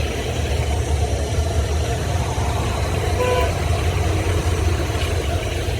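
Street traffic with a steady low rumble, and a short vehicle horn toot about three seconds in.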